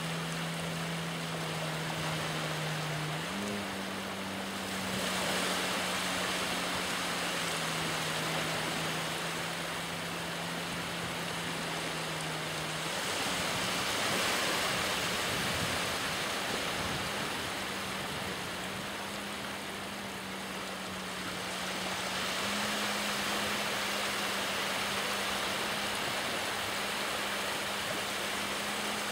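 Distant jet ski engine droning at a steady pitch as it tows a water skier, the pitch stepping up or down slightly a few times. Wind and surf hiss underneath, with waves swelling louder near the middle.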